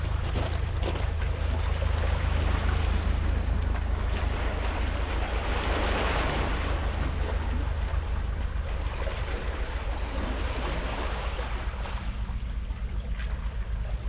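Small sea waves washing onto a pebble shore, one wash swelling louder about six seconds in, over a steady low rumble.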